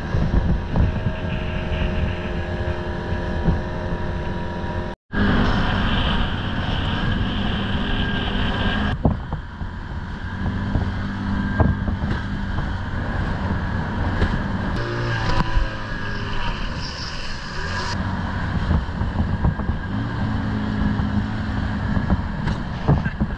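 Small outboard motor running steadily, driving an inflatable boat at speed over choppy water. The sound cuts out for a split second about five seconds in.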